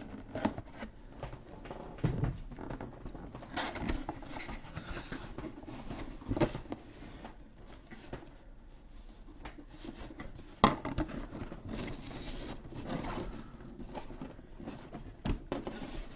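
Hands opening and handling a cardboard toy box and its contents: irregular rustling, scraping and light taps, with one sharper knock about two-thirds of the way through.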